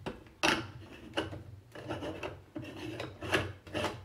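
Threaded top of an Imusa electric Moka-style espresso maker being screwed onto its base by hand, the threads scraping and rasping in a series of short, uneven strokes as it is twisted down snug.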